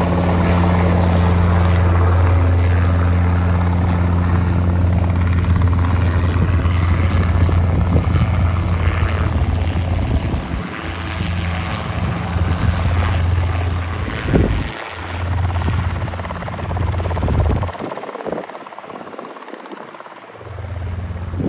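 Helicopter rotor and engine running, a loud steady low drone. It drops away about eighteen seconds in and comes back briefly near the end.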